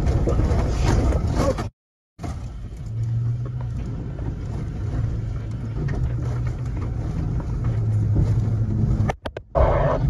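A truck's engine running steadily, heard from inside the cab while driving, under a steady rushing noise.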